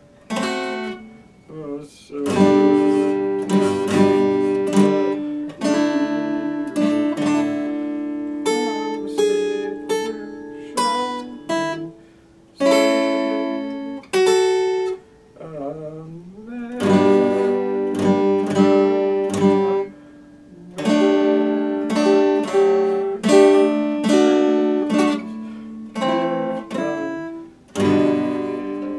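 Epiphone acoustic guitar played solo: plucked chords and single notes ringing out, with a few short pauses between phrases.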